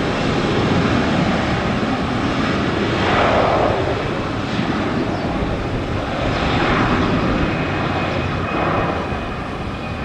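Jet engines of an Airbus A321 airliner at takeoff power on its takeoff roll, a loud rushing roar that swells and eases a few times.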